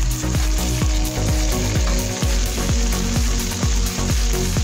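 Raw chicken pieces sizzling as they go into a pot of onions frying in oil. Under it runs background electronic music with a steady thumping beat.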